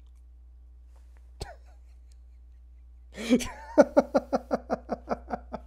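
A man laughing heartily, starting about three seconds in with a sharp breath and then a run of rhythmic 'ha-ha' pulses, about five a second, fading toward the end. A single faint click comes about a second and a half in.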